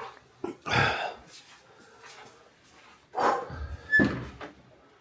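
A door being shut: a series of knocks and clunks, the loudest about a second in and again around three to four seconds in, with a brief squeak about four seconds in.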